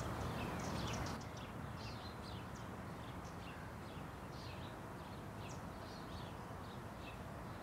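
Small birds chirping: a scattered run of short, high calls over a faint, steady low background hum, which drops a little about a second in.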